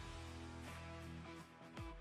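Background music, guitar-led with a steady beat.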